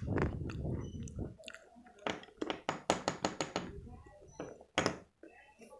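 Slate pencil being chewed: soft chewing, then a quick run of sharp crunches about two seconds in and one more crunch near the end.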